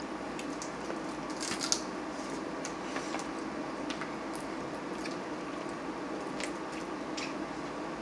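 Blue crab shells being cracked and picked apart by hand: scattered small sharp cracks and wet squishing, the loudest crack a little under two seconds in, over a steady background hum.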